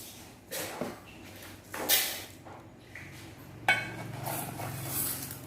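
Dry rice being measured out with a measuring cup: three sharp knocks of the cup against the container, each followed by a short hiss of rice grains sliding and pouring.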